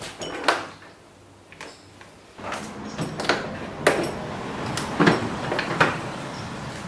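Toyota Landcruiser 200 Series rear door card being fitted back onto the door: several sharp knocks and clicks of the panel against the door, with rubbing and scraping from about two and a half seconds in.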